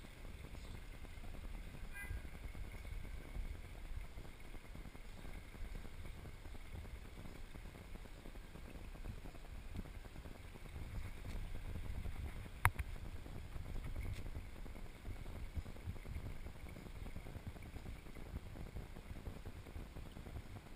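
Low, steady outdoor rumble with one sharp click about twelve seconds in.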